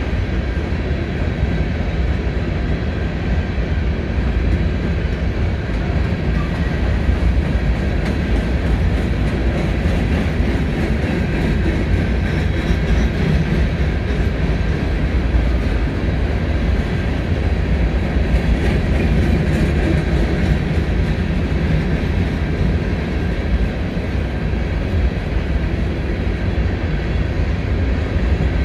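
A CSX freight train's empty coal cars rolling past: a steady, even rumble of steel wheels on the rails that holds without a break.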